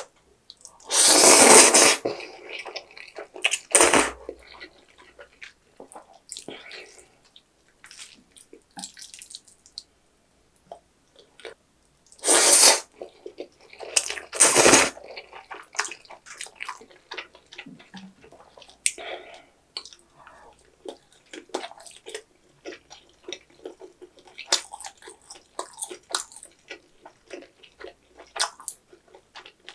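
Jajang ramen noodles slurped in four loud sucking bursts: a long one about a second in, a short one at four seconds, and two more around the middle. Between and after them comes wet, clicky chewing of the mouthful.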